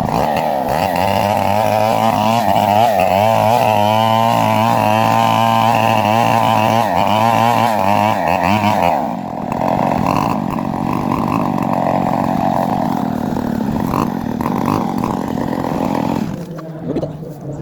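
Chainsaw cutting into a coconut palm trunk, running at high revs with a wavering pitch. About nine seconds in the steady pitch gives way to a rougher, lower sound, and the saw dies away near the end.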